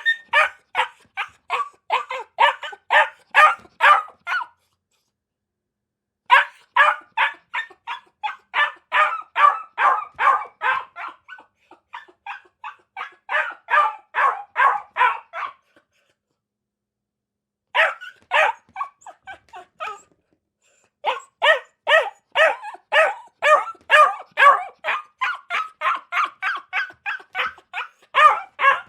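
A dog barking rapidly, about three barks a second, in runs of several seconds. The runs are split by short stretches of dead silence.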